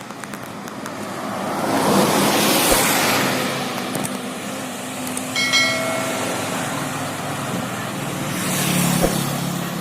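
Road vehicles passing at speed on a highway. Each swells up and fades: one about two to three seconds in and another near the end. A brief horn toot sounds a little past halfway.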